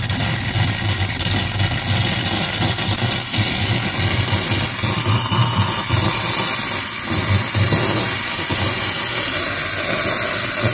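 Karaca Coffee Art 1101 espresso machine's steam wand running with a loud, steady hiss and a low hum underneath. On being switched to steam, the wand first lets out water for a short while as it heats up.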